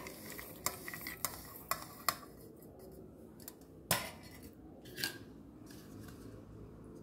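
Roasted sesame seeds, peanuts and cashews being scraped off a steel plate into a steel mixer-grinder jar: light clinks of metal in the first two seconds, then two sharper clinks about four and five seconds in. The grinder is not running.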